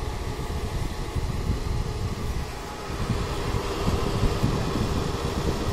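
Vending machine running: a steady fan-and-motor hum over a low rumble.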